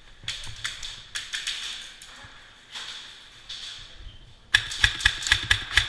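Airsoft guns firing: a quick rattle of shots in the first second and a half, then a rapid string of about eight loud, sharp shots near the end.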